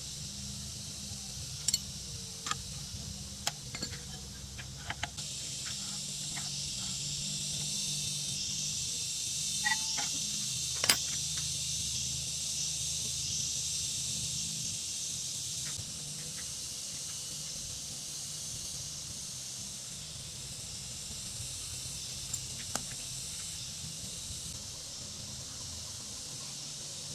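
A steady hiss over a low hum, louder for about ten seconds from about five seconds in, with scattered sharp clicks and knocks.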